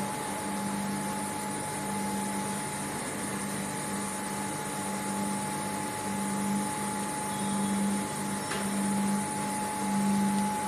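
Steady drone of foundry machinery on a vacuum-process molding line: a low hum that swells and dips every second or so, over a steady higher whine and a noisy hiss.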